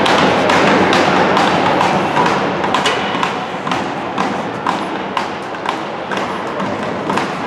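Hockey arena noise: a loud, dense crowd roar for about the first two seconds, then music over the arena's speakers with a beat of sharp knocks about twice a second.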